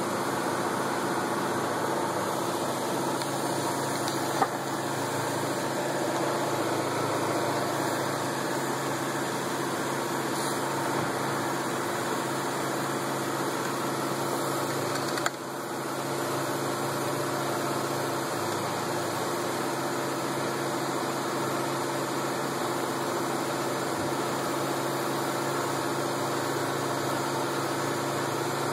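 An engine running steadily at a constant speed, an even hum with no change in pitch, broken only by a short click about four seconds in and another about fifteen seconds in.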